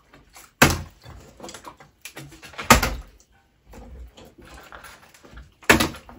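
Three sharp knocks on a hard surface, about two to three seconds apart, with faint rustling and handling noise between them.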